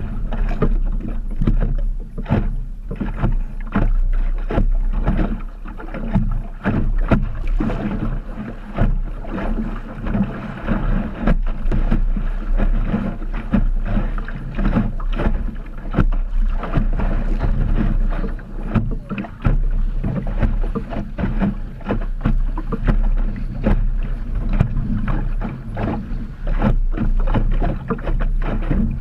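Optimist dinghy sailing through chop: water splashing and slapping against the hull in frequent sudden hits over a steady low rush of wind on the microphone.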